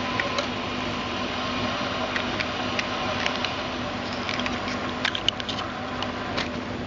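Small plastic single-serve milk pot being handled and its peel-off lid pulled back: scattered crinkly clicks, thickest from about four to five and a half seconds in, over a steady hiss.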